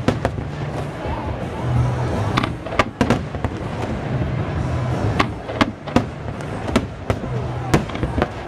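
Aerial firework shells bursting: a dozen or so sharp bangs at irregular intervals, over background music.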